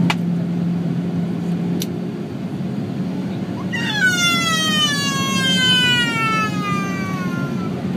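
Airliner cabin noise on descent: a steady rush with a low hum. From about halfway a whine slides smoothly down in pitch for about four seconds, and two sharp clicks come in the first two seconds.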